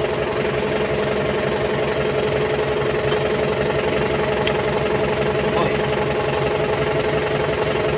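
Kubota M9540 tractor's diesel engine idling steadily with a clattering knock.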